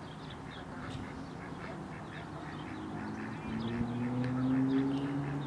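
Rapid, repeated short animal calls, several a second, with a low steady drone that comes in about three and a half seconds in and rises slightly in pitch.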